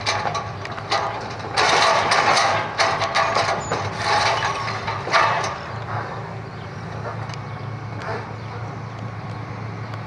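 A Hitachi demolition excavator breaking up a house: rubble and timber crashing and clattering in loud stretches for the first half, with a sharp knock about five seconds in. After that the diesel engine runs steadily while the arm is raised.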